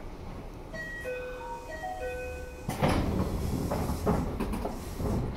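A short electronic chime melody of a few stepped notes plays inside a train car over a low rumble. About two and a half seconds in, a louder rush of noise with a couple of knocks takes over.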